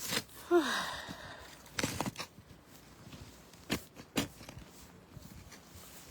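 A snow shovel working into deep snow: a scraping crunch with a short falling sound about half a second in, then four sharp crunching knocks spread over the next few seconds.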